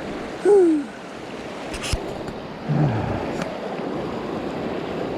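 Mountain stream water rushing steadily. A short falling voice-like sound about half a second in is the loudest moment, with a sharp click just before two seconds and another brief voiced sound near three seconds.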